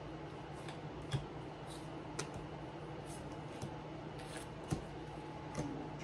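Pokémon trading cards being handled and sorted on a tabletop: soft slides and a few light taps as cards are picked up and set down, over a steady low room hum.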